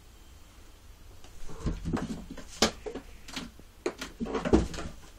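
A cat jumping and clambering on a carpeted cat tree: an irregular run of thumps, scrabbling and sharp knocks that starts about a second and a half in, the heaviest thud near the end.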